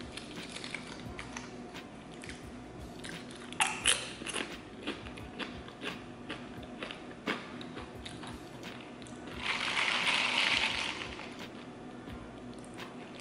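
Crunchy bite into a tortilla chip about four seconds in, followed by crisp chewing crunches. About ten seconds in comes a loud breathy rush lasting over a second.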